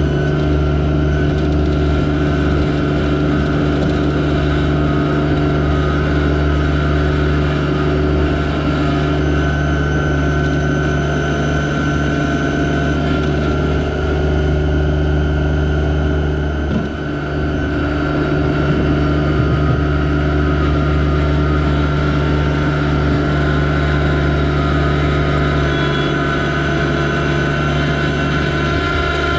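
Yanmar SA324 compact tractor's three-cylinder diesel engine running steadily, dipping briefly about two-thirds of the way through.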